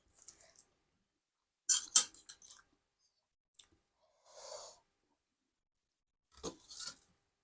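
A person eating: crunchy bites and chewing in several short bursts, the loudest about two seconds in and another near the end.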